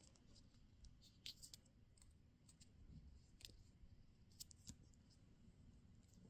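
Near silence with a few faint, sharp clicks and taps of handling during a wristwatch unboxing, as the watch and its packaging are moved about.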